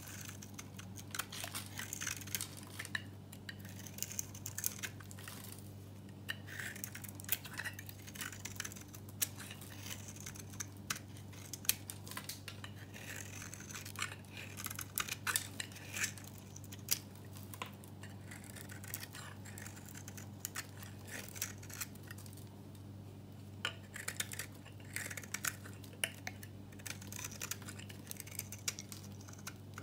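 Knife blade shaving a bar of dry, varnished soap, with crisp crackling scrapes as flakes break off, in irregular strokes.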